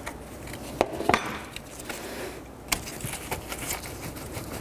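Scattered small metallic clicks and clinks of a 10 mm combination wrench loosening the nut on a car battery's positive terminal clamp, the loudest pair about a second in. Near the end the loosened clamp is worked off the battery post by hand.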